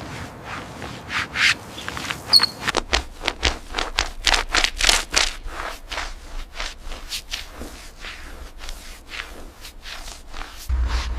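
Repeated rubbing strokes against a surface, about two to three a second, with a brief high squeak about two seconds in. A steady low hum starts near the end.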